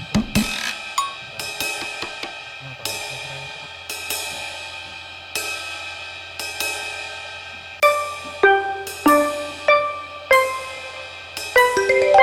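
Background music: cymbals and hi-hat struck on a steady beat with sustained notes, joined about eight seconds in by a melody of short ringing notes.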